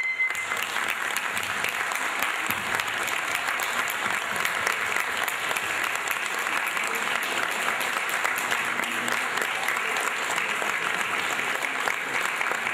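Audience applauding: steady, sustained clapping from a roomful of people.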